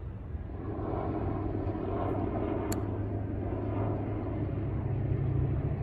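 A golf club striking the ball with one sharp click, over a steady low engine drone that grows louder and rises slightly in pitch near the end.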